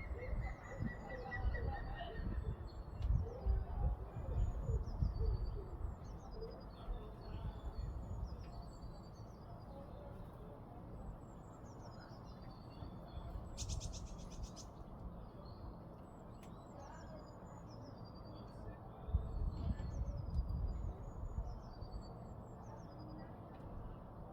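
Small songbirds calling again and again with short, high, falling chirps, with a short trill at the start and a brief rattle a little past the middle. A low rumbling runs underneath.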